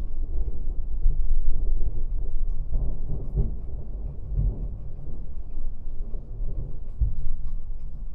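Rolling thunder: a deep rumble that swells and subsides over several seconds and is strongest in the first half. Faint scattered raindrop ticks sound over it.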